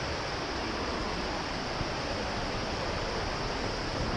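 Waterfall and creek water rushing steadily.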